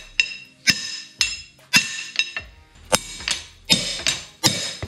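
Claw hammer striking the steel shaft of a hydraulic cylinder in repeated sharp metal-on-metal blows, roughly two a second, each ringing briefly. The taps drive the shaft and piston forward out of the cylinder barrel during a rebuild.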